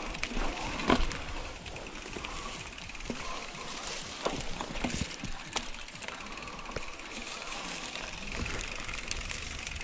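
Mountain bike rolling over a rough trail: steady tyre and wind noise with scattered rattles and clicks from the bike.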